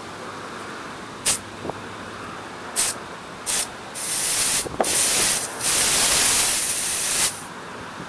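Compressed-air blow gun hissing: three short blasts, then longer sustained blasts from about halfway through. The air is blown back through the fuel passage of a Honda GCV160 carburetor that was getting no fuel, to clear it.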